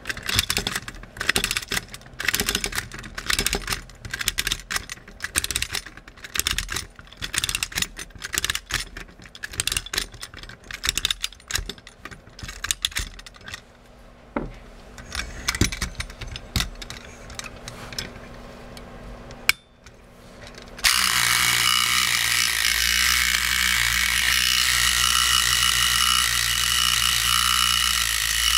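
Arnold Mac 700 tin windup toy motorcycle's clockwork spring being wound with its key, a long run of ratchet clicks. About twenty seconds in, the spring is let go and the clockwork motor runs with a loud, steady whir.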